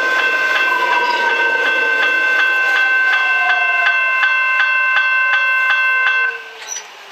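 Level crossing warning bells ringing in rapid, even strokes, then cutting off suddenly about six seconds in. Beneath them, an arriving X'trapolis electric train gives a whine that falls slowly in pitch as it slows toward the platform.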